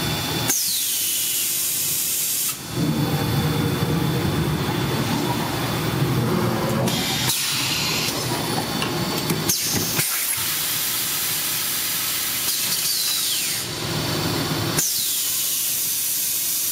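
Extrusion blow molding machine running through its cycle: loud blasts of compressed-air hiss, each opening with a falling whistle, about half a second in and again near the end, with shorter hisses in the middle and mechanical running noise between them.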